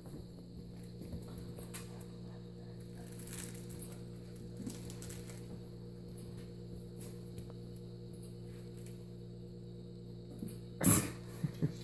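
Steady low electrical hum with faint scattered clicks and scuffs, then a sudden loud thump near the end followed by a couple of short, softer knocks.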